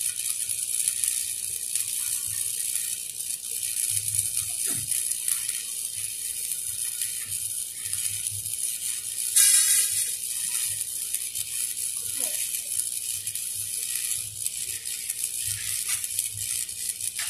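Stick (shielded metal arc) welding on a 3-inch schedule 40 steel pipe: the electrode's arc crackles and hisses steadily, with a brief louder crackle about ten seconds in.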